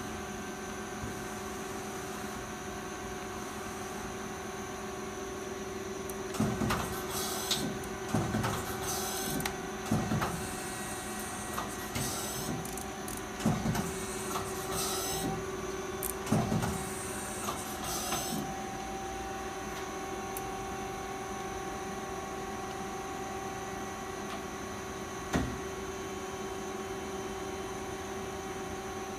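Mighty Viper VT-25B CNC turning center running, a steady machine hum with a few fixed tones. From about six seconds in, for some twelve seconds, it gives a series of clunks and short hissing bursts. After that the steady hum carries on, with one more click near the end.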